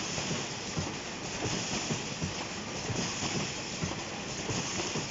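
RPM Basis 50 horizontal cartoner and its flighted infeed conveyor running, a continuous clatter of quick, irregular knocks over a steady hiss.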